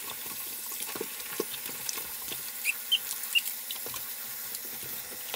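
Cold water running in a thin stream from a kitchen tap into a stainless steel sink while cabbage heads are rinsed by hand, with small splashes and handling clicks and a few short high squeaks a little past halfway.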